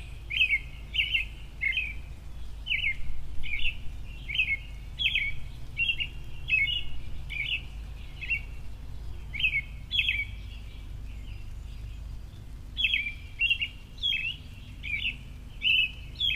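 Small bird chirping over and over in short, sharp notes, roughly two a second, pausing briefly about two-thirds of the way through, over a steady low rumble.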